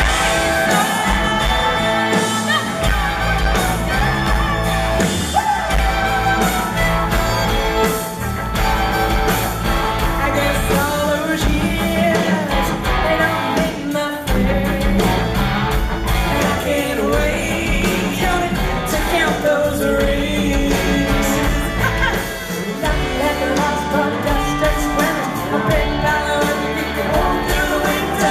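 Live country-rock band playing at full volume, with a woman singing lead over guitars, bass and drums.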